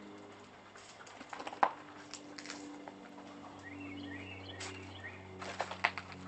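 Footsteps crunching and clattering over broken tiles and debris, with a sharp crack about a second and a half in and a quick run of crunches near the end. A bird chirps a few times in the middle, over a low steady hum.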